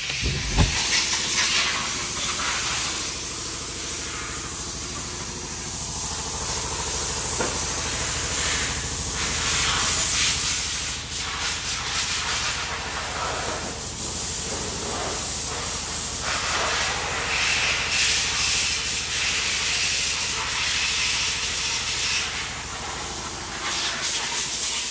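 Auto repair shop bay noise: a loud, uneven hiss over a low steady hum, with a door thumping open about half a second in.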